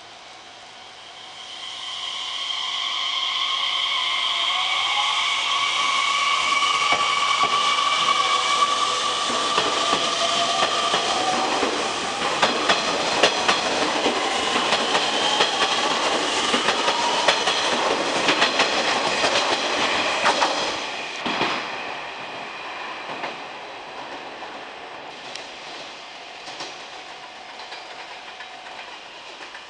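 Nishitetsu 3000-series electric train departing: its traction motors whine in several tones that shift in pitch as it accelerates. Then comes a quick regular clickety-clack of wheels over rail joints as the cars pass. The sound falls away after about twenty seconds.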